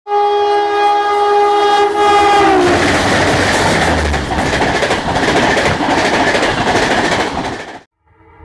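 Oncoming train passing close alongside, heard from the open door of a moving train: its locomotive horn sounds a steady chord that drops in pitch as it goes by, about two and a half seconds in. The rush and rattle of its coaches passing follows, and the sound cuts off suddenly near the end.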